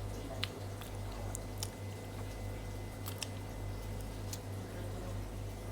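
A person chewing soft durian flesh close to the microphone, with a few sharp wet mouth smacks and clicks, over a steady low hum.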